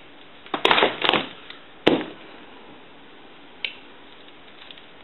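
Handling sounds from fitting a new plug onto a telephone handset cord: a short scraping rustle about half a second in, a sharp click near two seconds, and a lighter click a little later.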